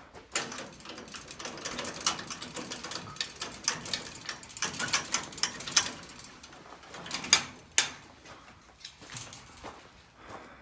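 Footsteps crunching on gravel: a dense run of irregular crunches for about the first six seconds, then fewer, sharper steps.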